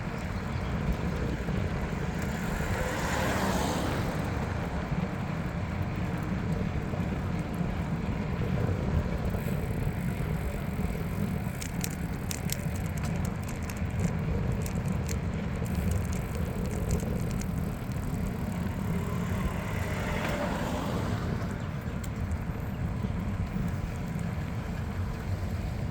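Riding noise on a bicycle: a steady low rumble of wind and tyres on the microphone. A run of sharp clicks and rattles comes around the middle, and two brief swells pass, one about three seconds in and one about twenty seconds in.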